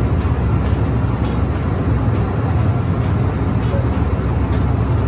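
Steady engine and airflow noise inside an airliner's cabin in flight, deep and even.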